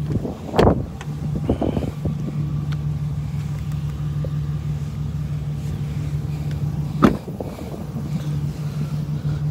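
A Chevrolet Silverado 2500HD pickup idling with a steady low hum. A door clunks about half a second in, and a door shuts with a solid slam about seven seconds in.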